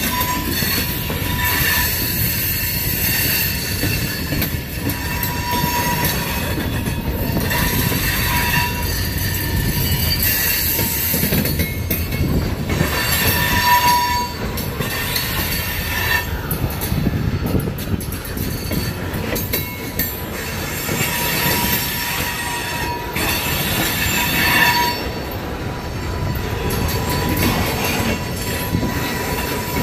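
Loaded center-beam flatcars of a freight train rolling past, a steady low rumble of steel wheels on rail. High-pitched wheel squeal swells and fades several times.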